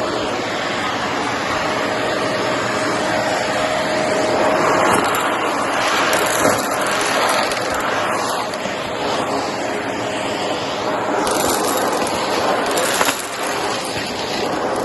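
Shark vacuum cleaner running steadily while vacuuming up cardboard debris, its even rushing noise shifting a little as it moves, with a brief click near the end.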